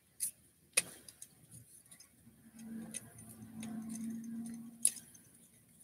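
Plastic clicks of a Transformers Siege deluxe Impactor action figure's joints and panels being twisted and folded by hand during transformation: scattered sharp clicks, a few louder ones. A faint low hum runs under the clicks for about two seconds in the middle.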